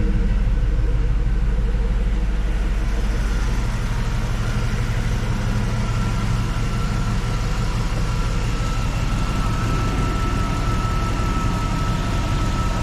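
2004 GMC Yukon Denali's 6.0-litre V8 idling steadily, with a thin steady whine over the engine note; the low rumble eases a little about four seconds in.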